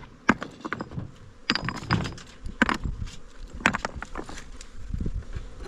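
Irregular sharp clicks and knocks of wooden beehive parts being handled, as frames are worked in and out of a hive.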